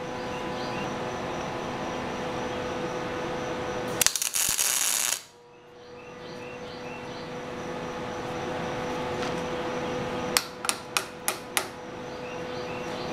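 Metal-shop work: a steady machine hum with a constant tone, broken about four seconds in by a loud hissing burst lasting about a second, and five quick sharp taps near the end.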